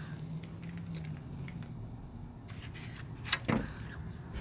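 Scattered light clicks over a steady low rumble, with two sharp knocks in quick succession about three and a half seconds in.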